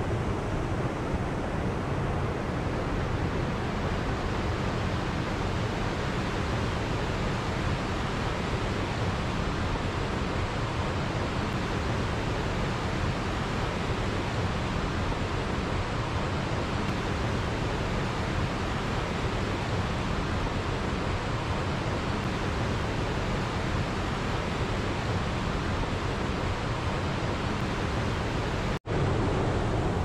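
Steady rush of a waterfall pouring into a pool, even and unbroken, with a brief cut-out to silence about a second before the end.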